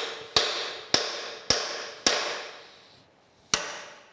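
Hammer blows ringing on metal as wedges are driven between the cylinder head and body of a steam locomotive stoker engine, to work the stuck head off its dowel pins. Four blows come about half a second apart, then after a pause one more near the end, each with a short metallic ring.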